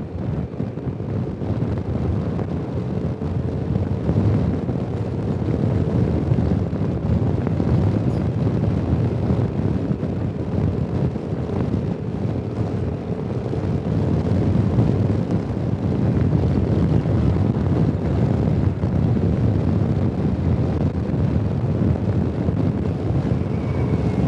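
Steady wind rush on the microphone over the engine and tyre noise of a motor scooter riding at steady speed.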